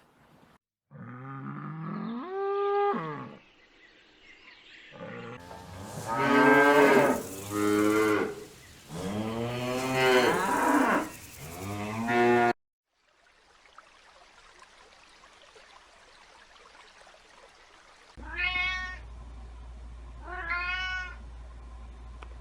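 A series of animal calls with abrupt cuts between them: a rising call near the start, a run of loud drawn-out calls in the middle that stops suddenly, and two short calls near the end.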